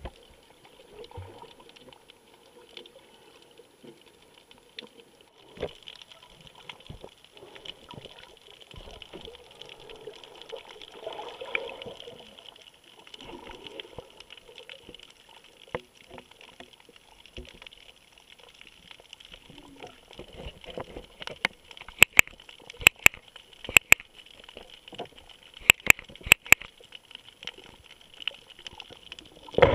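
Underwater hiss and crackle heard through a camera's waterproof housing. In the last third comes a run of sharp clicks, mostly in pairs: the Drift HD Ghost camera's own clicking as it takes still photos while recording video.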